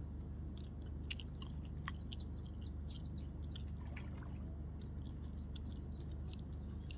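Small birds chirping in quick, scattered short calls, busiest in the first few seconds, over a steady low hum.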